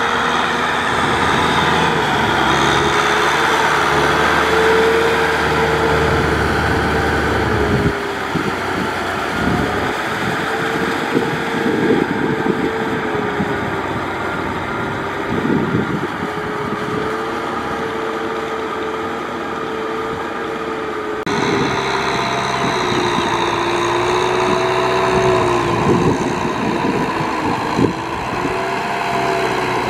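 Kubota M6040SU tractor's four-cylinder diesel engine running steadily under load while it pulls a rotary tiller through a flooded rice paddy. The pitch wavers a little, and the sound shifts abruptly about eight and twenty-one seconds in.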